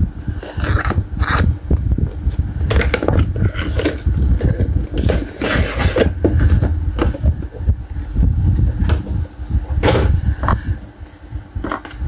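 Handling noise: irregular scrapes and clicks over a constant low rumble, as of an object being handled and moved about.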